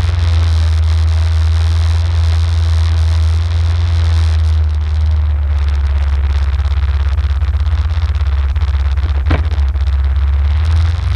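Arctic Cat ATV engine running steadily at low revs, heard close up from the quad itself, with a noisy hiss over it. A single short click about nine seconds in.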